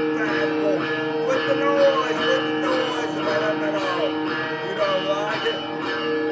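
Instrumental music: a guitar line with sliding notes over two steady held notes.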